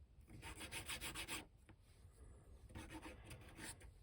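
A small piece being sanded by hand on a nail file laid flat on a table: two bouts of quick back-and-forth scratchy strokes, each about a second long.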